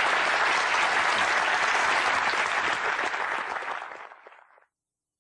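An audience applauding, a dense, even clapping that fades away around four seconds in and then cuts to silence.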